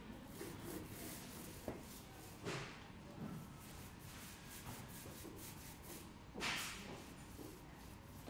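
Two short swishing rubs about four seconds apart, the second louder, from something rubbed against a wall surface, with faint shuffling in between.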